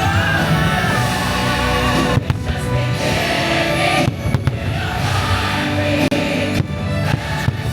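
Fireworks show soundtrack: loud music with singing and choir, with firework bursts in among it a few times.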